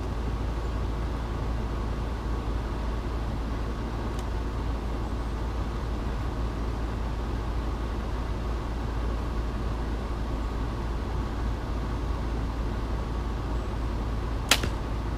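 Steady low outdoor background rumble, then near the end a single sharp snap as an Elite Ember compound bow is shot. There is a faint click about four seconds in.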